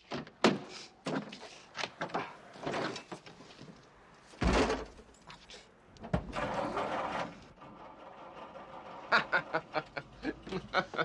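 A car door being worked open and shut: a series of knocks and thunks, one heavy thud about four and a half seconds in, a scraping noise a second or two later, and quick clicking near the end.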